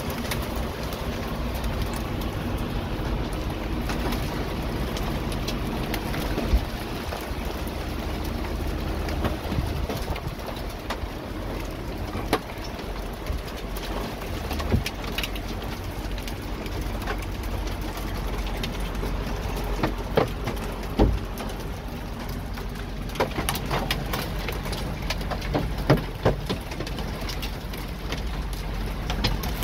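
Rain and hail drumming on a semi truck's cab roof and windshield, heard from inside the cab: a steady patter with sharp, irregular knocks that come thicker in the second half, over a constant low rumble.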